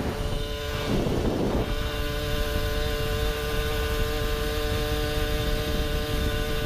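Two-stroke single-cylinder engine of a kitted Puch Maxi Luxe moped with an expansion-chamber pipe, running at steady revs while cruising, over a constant low wind rumble on the microphone. A brief gust of wind noise comes about a second in, after which the engine note holds one pitch.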